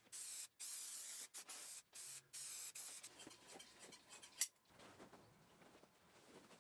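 Upholstery spray adhesive hissing in several short bursts, then softer rustling and a single sharp click.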